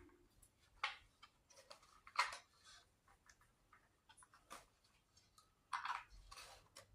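Faint, scattered clicks and light taps, about five in all at uneven intervals, as a long screw is tried in the metal mounting bracket of a security light.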